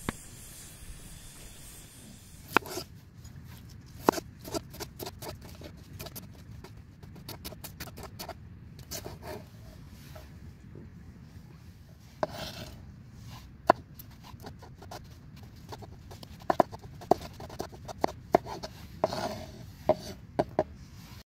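Food-preparation handling noise: scattered sharp taps and clicks of utensils, some in quick runs, with a few short scrapes.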